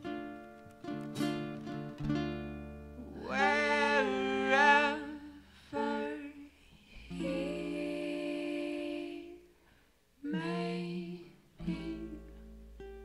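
Slow acoustic blues: sparse plucked ukulele and upright bass notes, then a wordless vocal line with a wavering vibrato from about three seconds in. A long held note follows, and near the end there is a shorter sung phrase.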